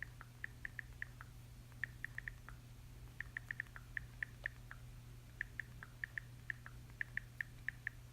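iPhone on-screen keyboard clicks as a message is typed: short, light taps in quick irregular runs with brief pauses between them.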